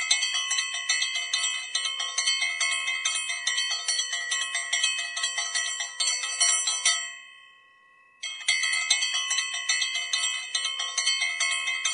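Temple bells being struck rapidly and over and over, a bright metallic ringing. About seven seconds in the ringing stops and dies away, then starts again abruptly about a second later.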